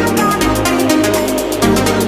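Electronic dance music with a fast steady beat, sustained synth notes and a bass line.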